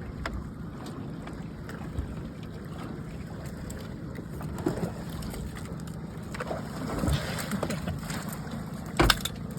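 Steady low rumble of a boat on the water with some wind, broken by a few scattered knocks and a loud, sharp thump about nine seconds in.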